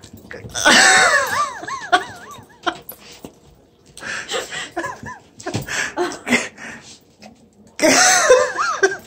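A person laughing in high-pitched bouncing bursts, once early and again near the end, with the short wet smacking and licking of a golden retriever working peanut butter around its mouth in between.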